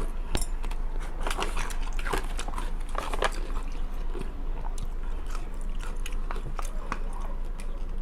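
Close-up biting and chewing of a crisp dill pickle: repeated wet crunches and crackles, thickest in the first few seconds.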